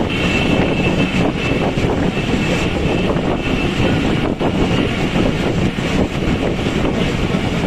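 Passenger train running on the line, heard through an open coach window: a steady rumble of wheels on rails, with a faint high whine that comes and goes.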